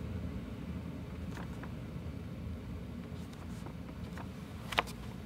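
China marker (grease pencil) making short, quick strokes on paper: faint scratchy ticks over a low steady hum, with one sharper tap near the end.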